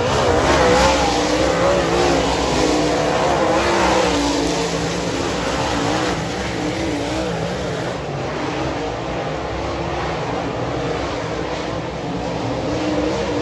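Dirt late model race cars' V8 engines running hard around a dirt oval, several engine notes rising and falling in pitch as the cars power through the corners and pass by.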